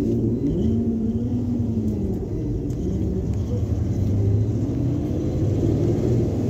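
PAZ-320302 bus engine heard from inside the cabin as the bus pulls away from a stop. Its pitch rises in the first second, holds, then drops about two seconds in, and it settles into a steady low drone under way.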